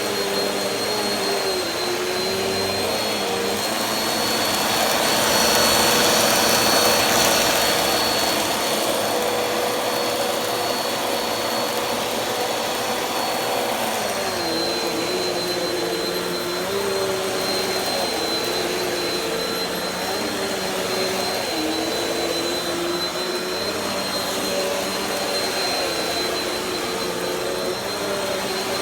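Bissell CleanView upright vacuum cleaner running continuously, a steady motor hum with a high whine, its pitch dipping briefly every second or two. A louder rush of air comes about five to seven seconds in.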